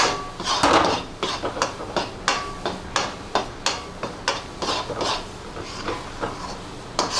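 Metal spatula scraping and knocking against a metal kadhai while stirring and pressing thick puran (cooked chana dal and jaggery), about two to three strokes a second.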